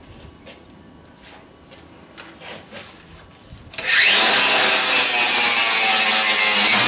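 A few light clicks and knocks of handling, then about four seconds in an angle grinder spins up with a rising whine and grinds against the metal exhaust pipe, loud and steady.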